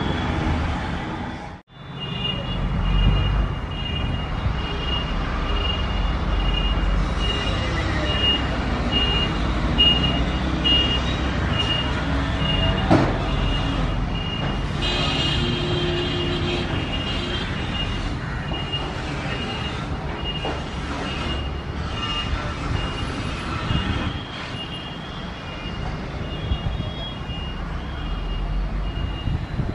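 Train with an electric locomotive rolling slowly, a steady low rumble, with a high beep repeating about twice a second over it for much of the time. The sound cuts out briefly about two seconds in, and a single sharp knock comes about halfway through.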